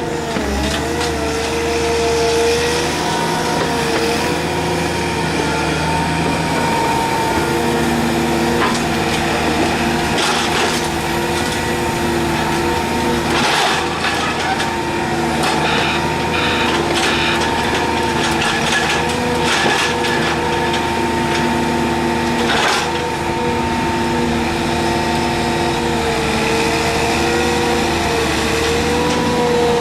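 Excavator's diesel engine and hydraulics running steadily under load, with a whine that wavers slightly in pitch. Now and then short knocks and clatter cut in as concrete railway sleepers are handled over the ballast.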